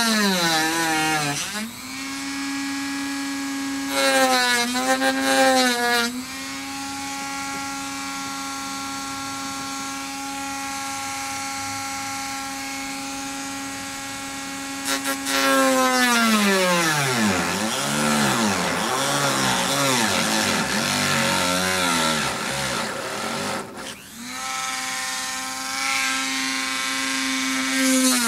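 Dremel rotary tool running at high speed while cutting a bumper, a steady whine whose pitch sags and wavers each time the cutter is pushed into the cut, most of all for several seconds just past the middle. The tool cuts out briefly near the end, then spins back up.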